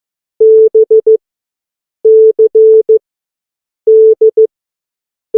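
Morse code sent as a steady single-pitch beep, spelling out the alphabet in order: B (dah-dit-dit-dit), then C (dah-dit-dah-dit), then D (dah-dit-dit), each letter about a second apart, with the single short dit of E right at the end.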